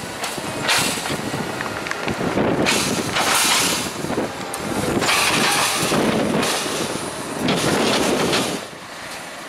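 JCB 418S wheel loader working a maize silage clamp with a buckrake: its engine running under load, swelling louder in surges as it pushes the chopped maize, then dropping sharply near the end.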